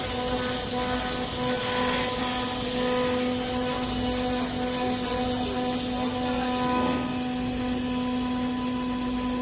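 CNC wood router spindle running steadily while its bit carves a teak wood door panel: a constant whine with even overtones over the hiss of cutting.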